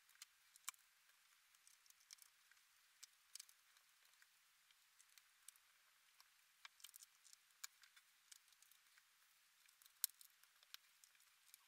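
Faint, irregular small clicks and ticks of a screwdriver driving the small bottom-case screws into a MacBook Pro's aluminium case.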